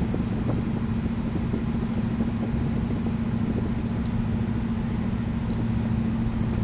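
A car driving along a highway, heard from inside the cabin: a steady low drone of engine and road noise with a constant hum.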